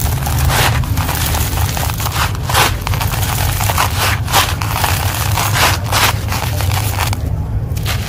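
Dry, dusty concrete grit being crushed in the hand and rubbed through a slotted plastic basket: a busy run of gritty crunching and rustling bursts, uneven in strength, over a steady low rumble.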